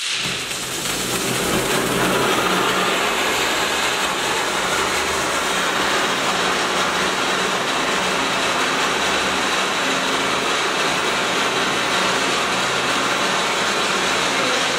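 Red Dragon cold pyro fountain firing a tall column of sparks, a loud continuous hiss. It starts abruptly, swells over the first couple of seconds, then holds steady.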